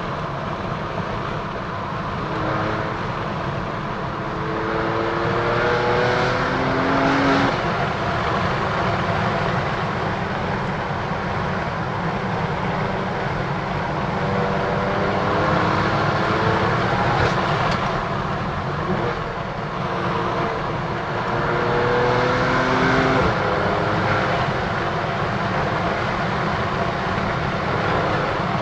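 BMW F80 M3's twin-turbo S55 inline-six, with an M Performance exhaust and secondary cat delete, under acceleration. The revs climb in three pulls, about 2, 14 and 21 seconds in, each stepping through gear changes, over steady road and tyre noise.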